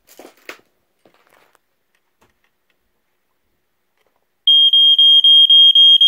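A few light clicks of handling at the test button, then about four and a half seconds in the electronic horn of a 1985 Sears Early One smoke detector made by Gateway Scientific goes off in test: a loud, high-pitched steady tone pulsing rapidly, about four pulses a second.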